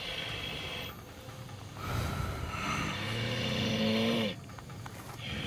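A man growling low in his throat like an animal: a short growl at the start, then a longer, louder one of about two and a half seconds that stops abruptly. It comes from a team member in a trance-like state, taken to be voicing a spirit guarding the place.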